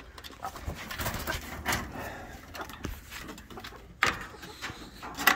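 Hens making soft calls behind the coop's wire mesh, then a metal barrel-bolt latch on the wooden coop door being slid open, with a sharp click about four seconds in and a louder one just before the end.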